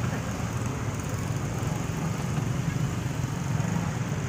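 Motorcycle traffic crawling through a packed street: a steady low drone of small motorcycle engines with no distinct events.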